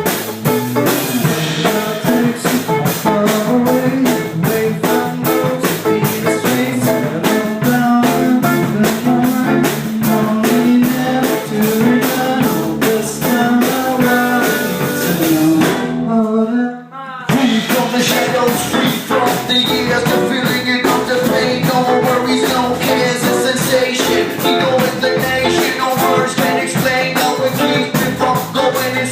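Live rock band playing an instrumental passage: a steady drum beat under guitars and bass. About sixteen seconds in the band drops out for under a second on a single sliding note, then comes back in.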